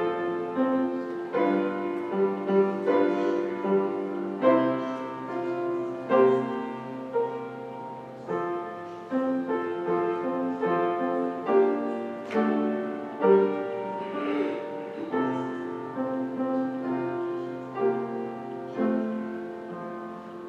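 Solo piano playing slow chords under a melody, each note struck and then dying away. The playing fades out near the end.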